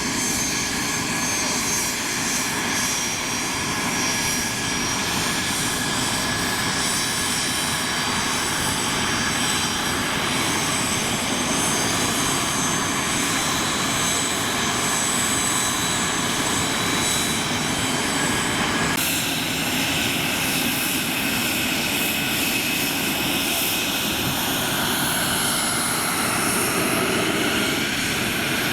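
Twin Garrett TFE731 turbofan engines of a Learjet C-21A running steadily, a rushing jet noise with high whining tones over it. About two-thirds of the way in the sound changes abruptly, and a high whine glides up and down near the end.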